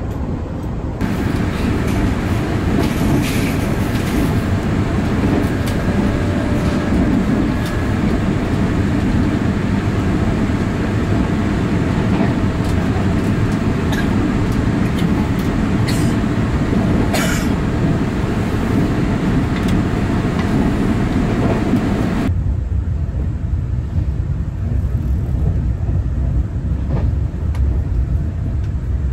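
Cabin noise inside a Taiwan Railway EMU3000 electric multiple unit running at speed: a steady rumble of wheels on rail with a faint whine and a few sharp clicks. About twenty-two seconds in, the sound turns deeper and duller.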